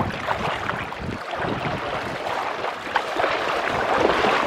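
Shallow surf washing and splashing at the water's edge, with wind on the microphone.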